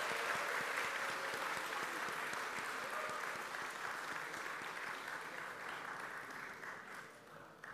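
Audience applauding, a dense patter of many hands clapping that slowly fades and dies away near the end.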